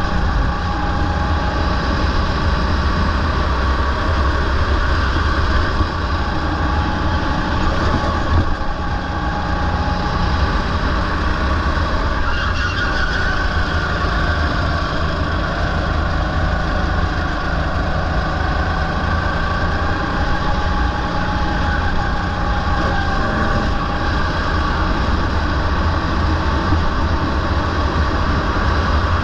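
Rental go-kart engine running at speed under an onboard camera, a steady low rumble underneath; its pitch rises and falls a little as the kart goes through corners and onto the straight.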